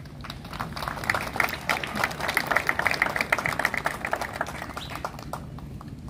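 Audience clapping, building about a second in and dying away near the end.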